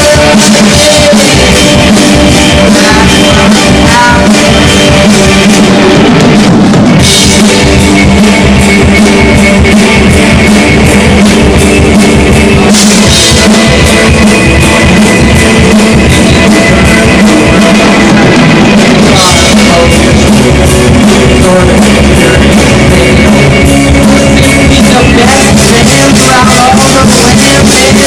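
Live rock band playing: drum kit, electric guitar and singing, recorded so loud that the level stays pinned near full scale and the sound is overdriven.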